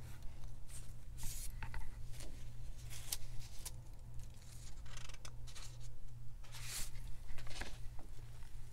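Sheets of coffee-dyed paper rustling as they are handled, a series of short, irregular rustles, over a steady low hum.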